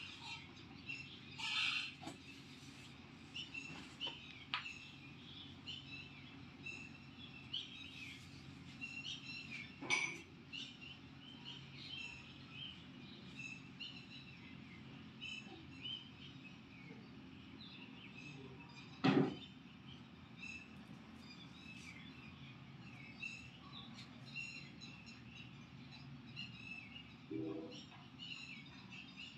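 Tailoring scissors cutting through fabric on a table, with two sharp knocks, the louder one about two-thirds of the way through, over faint birds chirping.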